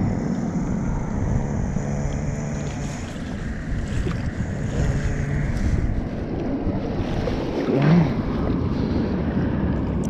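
Wind buffeting the microphone, with small waves lapping at the lake shore underneath.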